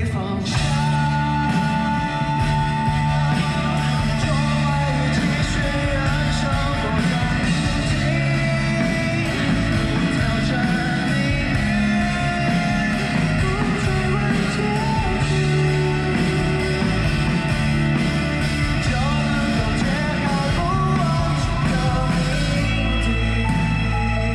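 Live pop-rock band with a male lead vocalist singing into a microphone, with guitar and a steady drum beat, heard from within the audience.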